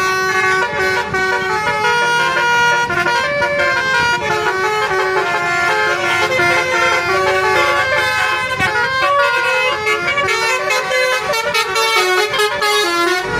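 Basuri 'telolet' musical air horns on a bus and a car playing tunes over each other. The notes come in quick stepped runs without a break.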